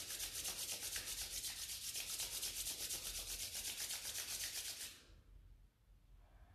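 Palms rubbed briskly together to build warmth, a quick rhythmic back-and-forth rubbing with several strokes a second. It stops abruptly about five seconds in as the hands come to rest.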